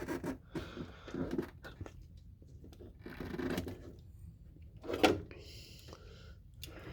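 Handling noises of wiring being fed through a truck door: scattered rustles and light clicks of plastic and wire, with one sharper click about five seconds in.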